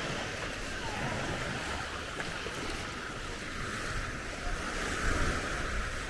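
Waves washing onto the beach: a steady hiss of surf that swells near the end, with some wind rumble on the microphone.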